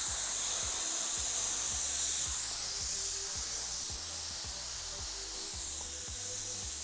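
Air hissing out of a bicycle tire's Presta valve as the tire is deflated. The hiss is steady and high-pitched and eases slowly as the pressure drops.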